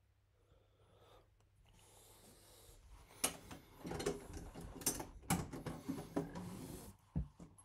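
Rustling and a run of sharp knocks and clicks, as of objects being handled and set down, building up about three seconds in and ending near the end with one last thump.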